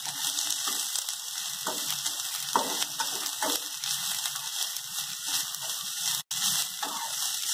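Julienned cabbage, carrot, beans and capsicum sizzling in hot oil in a steel kadai as they are stir-fried, with a steady hiss and a spatula scraping against the pan several times.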